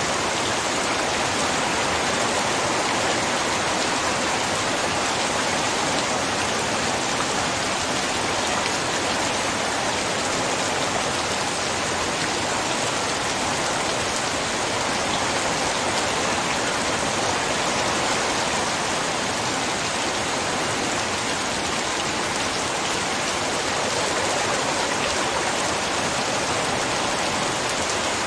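Heavy, torrential rain falling steadily as a dense, even hiss.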